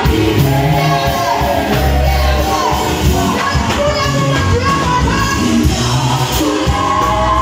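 A vocal group singing a song live in harmony, with sustained low bass notes underneath.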